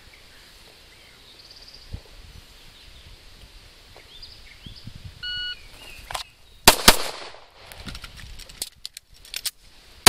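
A short electronic shot-timer beep about five seconds in. It is followed by two quick pistol shots from a Glock a split second apart, a few light clicks of the reload, and another shot right at the end.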